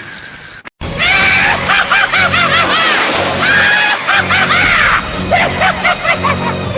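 An anime sound clip: a high-pitched voice yelling in a rapid string of short shouts over music, starting abruptly about a second in after a brief dip.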